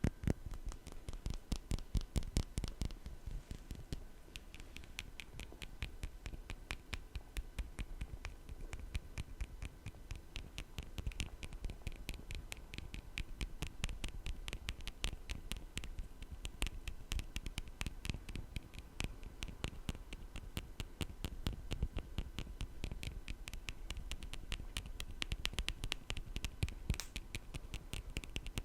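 Rapid fingertip tapping and scratching right on an ASMR microphone: a dense, continuous run of light, sharp taps, many per second.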